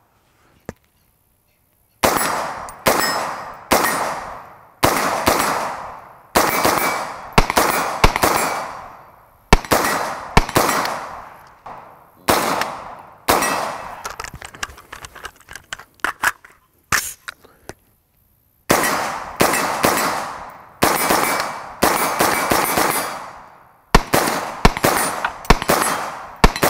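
Stag 15 MOE SL AR-15 carbine with a Stag compensator firing 55-grain .223 ammunition semi-automatically, about one shot a second, each sharp report trailing off. About halfway through, the firing pauses for a few seconds with only light clicks, then picks up again at the same pace.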